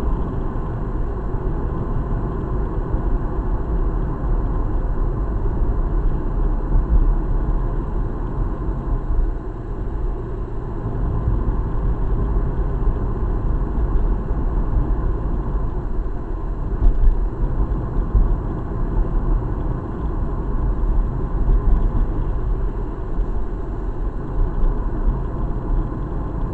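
Steady road noise inside a car cabin while cruising at about 50 km/h: tyres on the pavement and a low engine hum.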